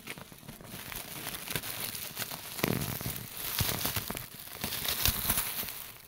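Close rustling and crackling right at the microphone, with many scattered clicks, building up during the first second and going on throughout: handling noise as the phone is carried down steps.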